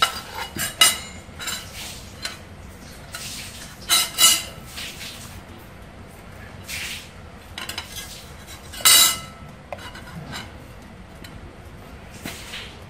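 Scattered clinks and knocks of kitchen utensils against dishes, some ringing briefly; the loudest come about a second in, around four seconds, and around nine seconds.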